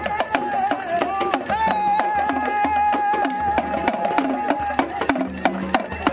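Traditional West African music: hand drums beat steadily under a long, high, wavering melody line. The melody drops out about five seconds in, leaving the drums.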